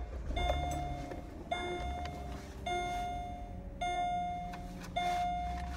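A car's electronic warning chime, sounding five times at an even pace of a bit under once a second.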